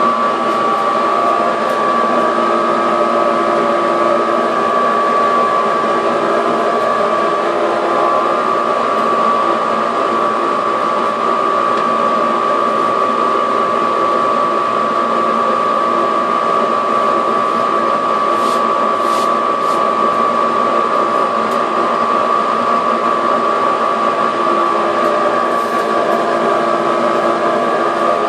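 Razi 1 hp single-phase dust collector running steadily, its motor and fan giving a high whine over rushing air as it sucks debris off the floor through a floor nozzle on a flexible hose.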